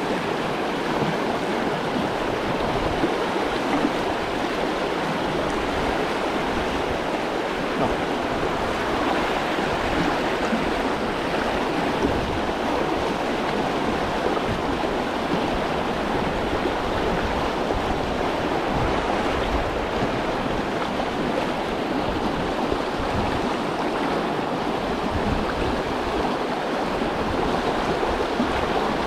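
River current rushing steadily over stones: a continuous, even rush of water.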